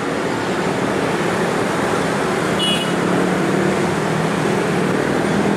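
Diesel locomotive running light toward the listener, a steady engine drone, mixed with road traffic noise. A brief high chirp sounds about halfway through.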